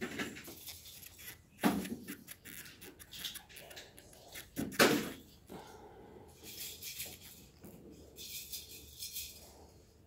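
Hands handling a network cable and a clear RJ45 plug, pushing the wires into the plug: light rustling and plastic clicks, with two louder knocks about three seconds apart.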